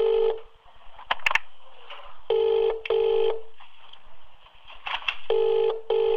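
British telephone ringback tone heard down the line: the double ring, pairs of short steady buzzing tones repeating about every three seconds while the called number has not yet answered.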